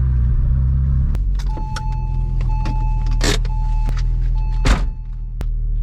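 Porsche 996 Turbo's twin-turbo flat-six idling at a standstill. From about a second and a half in, a single-pitched electronic chime beeps repeatedly over it, with scattered sharp clicks and two brief swishing noises.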